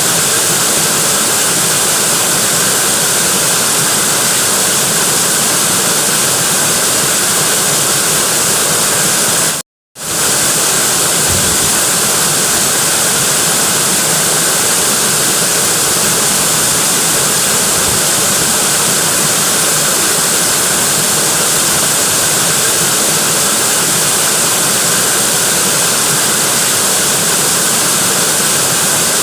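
Natural waterfall rushing steadily as a loud, even roar of falling water, cutting out completely for a split second about ten seconds in.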